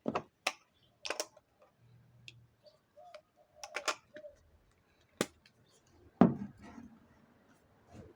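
Small hard objects being handled: scattered sharp clicks and light knocks, with a heavier knock about six seconds in.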